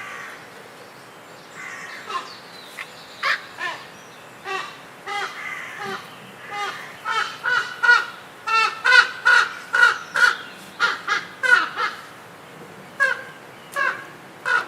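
A bird calling repeatedly in short pitched notes: a few scattered calls, then a quick run of calls in the middle, then spaced-out calls near the end.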